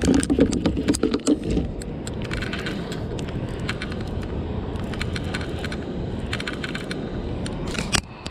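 Clicking and rattling of fishing tackle being handled, in irregular clatters that are densest in the first second and a half and again near the end, over a steady low rumble.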